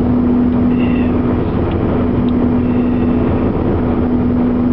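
Steady road and engine noise inside a moving car's cabin: a low rumble with a constant hum.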